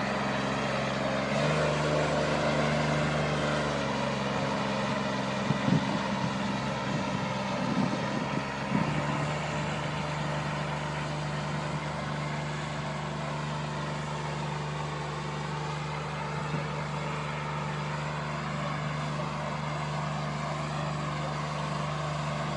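Engine of a self-propelled boom sprayer running steadily as the machine drives along spraying, its note shifting up and down a few times in the first nine seconds before settling into a steady drone.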